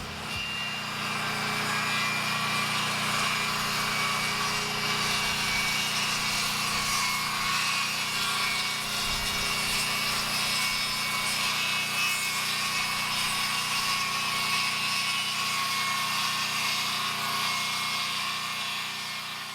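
A power tool running steadily at a constant speed, without letting up for the whole stretch.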